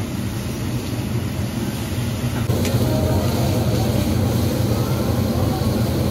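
Steady low rumble of a restaurant's exhaust hood ventilation. The drone changes abruptly and gets a little louder about two and a half seconds in.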